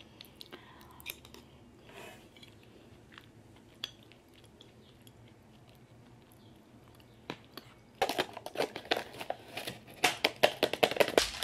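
Faint clicks and chewing while eating. About eight seconds in comes a loud, dense run of crinkling and rattling as a packet is handled at the top of a plastic jar.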